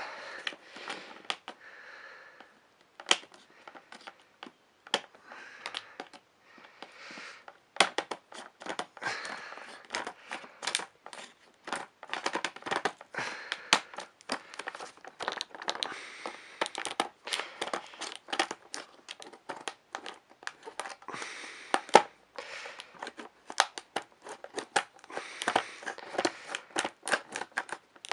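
Model train box packaging being opened and handled by hand: crinkling and rustling, with many small clicks and taps.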